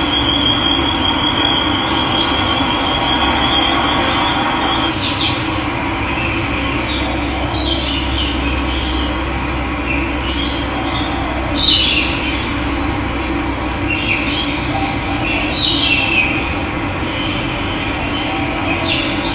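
Steady rush of running water, with wild birds calling over it: a thin high trill for the first few seconds, then several short, sharp chirps, the loudest about twelve seconds in.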